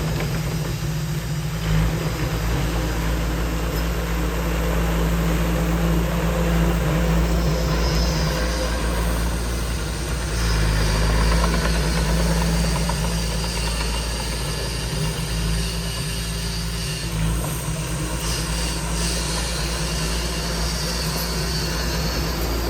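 Diesel engine of heavy earthmoving equipment running steadily, a low rumble with a constant hum.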